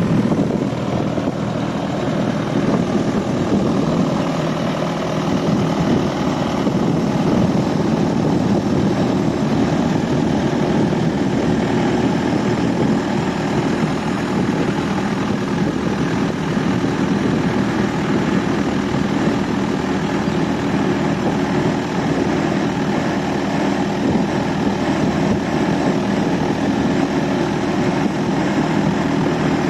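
Boat engine running at a steady pace, a continuous even drone with a hiss of wind and water over it.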